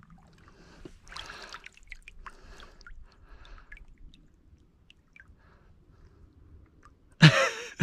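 Soft trickling and sloshing of shallow lake water as hands hold and move a tired bass underwater to revive it, with one sudden loud burst near the end.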